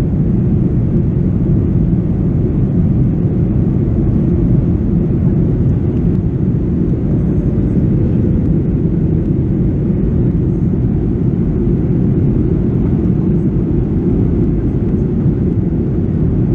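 Steady cabin noise inside a Boeing 737-800 in flight: a constant low rumble of its CFM56-7B turbofan engines and the airflow over the fuselage, heard at a window seat over the wing.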